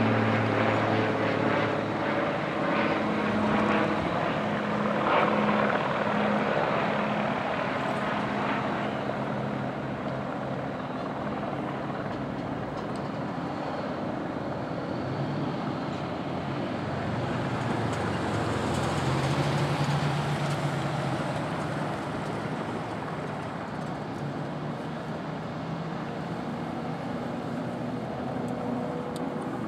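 Firefighting aircraft flying overhead: a steady engine drone, loudest in the first several seconds, with a low hum that swells again about two-thirds of the way through.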